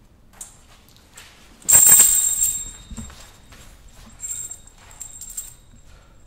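A sudden loud crash with a bright metallic hiss that dies away over about a second, followed by a few fainter short noises.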